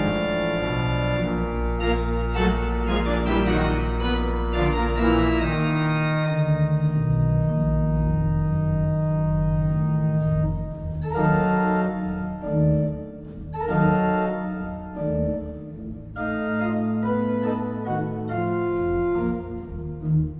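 Pipe organ playing loud, dense sustained chords over a deep held pedal bass that drops out about six seconds in. From about ten seconds on, the chords come as short detached blasts with brief gaps between them.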